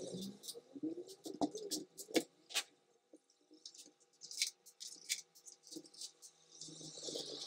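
Irregular clicks, taps and scraping of small plastic and metal parts as a Dell Inspiron N5040 laptop's casing is taken apart, with the sound sped up.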